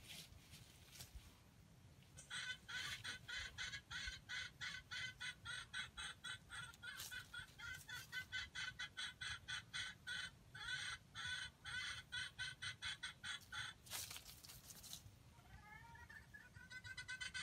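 Junglefowl clucking rapidly, about four or five evenly spaced clucks a second in a long run. A short burst of noise breaks the run, and the clucking starts again near the end with a few rising notes.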